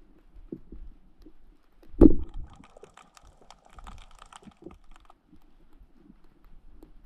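Underwater sound picked up through a diving camera: soft low knocks, one loud thump about two seconds in, then a few seconds of rapid clicking and crackling that fades out.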